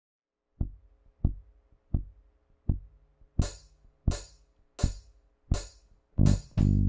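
Count-in on a Roland TD-25KV electronic drum kit: four low kick-drum beats, then four brighter cymbal hits, evenly spaced at a moderate tempo. Near the end the full drum groove and electric bass come in together on a funk jam.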